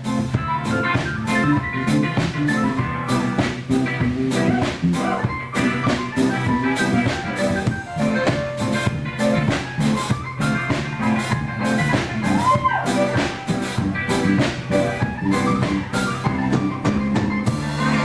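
Music with a drum kit keeping a steady beat under pitched instruments.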